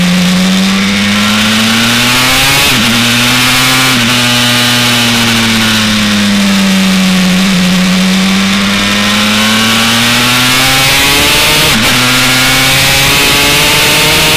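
Two-stroke single-cylinder race engine (a Honda TRX250R engine bored to 327 cc) running hard under the rider, its note sinking and climbing slowly as the throttle and speed change through the corners. The note breaks briefly about three and four seconds in and again near the end, as on quick gear changes.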